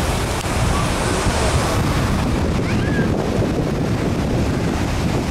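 Wind buffeting the microphone with a steady low rumble, over the wash of choppy waves breaking on the shore.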